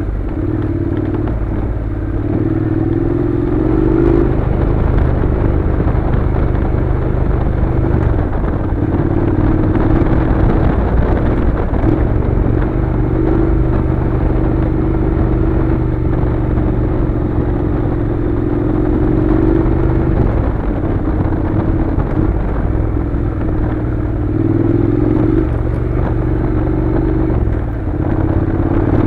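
Honda NC700's 670 cc parallel-twin engine running at low road speed on a gravel track. Its note rises and eases off several times as the throttle opens and closes, over steady wind and tyre noise.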